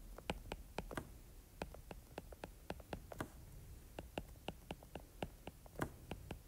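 Stylus nib tapping and clicking on a tablet screen during handwriting: faint, sharp ticks at an irregular few per second.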